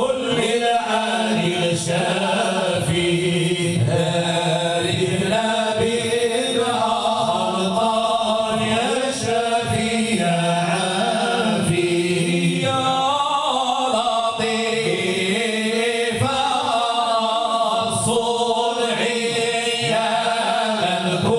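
A group of voices chanting madih, Islamic devotional praise song, together in long held lines without a break.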